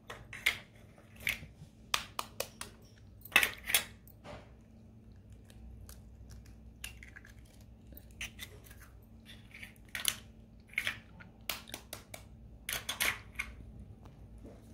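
Eggshells cracked and broken apart by hand: scattered sharp crackling clicks, in clusters near the start, about three and a half seconds in, and again from about ten to thirteen seconds in.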